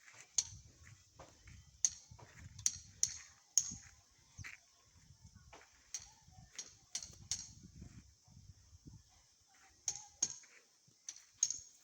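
About a dozen sharp knocks at irregular intervals, with patches of low rumbling noise between them.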